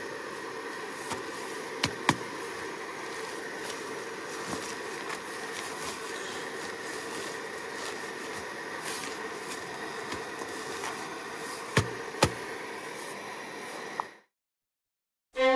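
A steady rushing hiss fills the tent, with a few sharp clicks and rustles as mountaineering boots are pulled on and strapped. The sound cuts out shortly before the end, and bowed string music begins.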